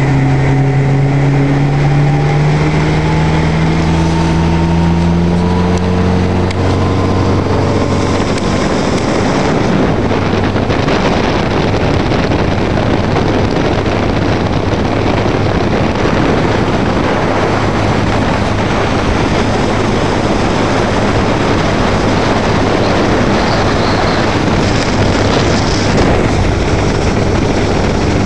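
1979 Century motorboat's engine rising steadily in pitch as the boat accelerates over the first several seconds, then a loud, steady rush of wind and water as it runs at speed.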